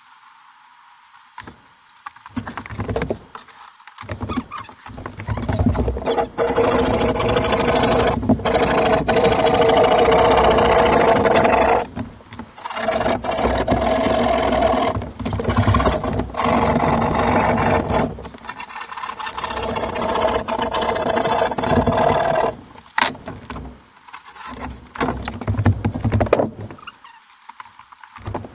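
Handheld electric power tool running in long bursts of several seconds each, a steady motor whine, with knocks and handling of drywall sheets in the quieter gaps.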